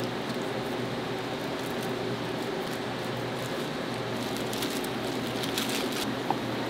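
Restaurant kitchen ambience: a steady ventilation hum and noise, with light crackling and clicking that thickens about four and a half seconds in.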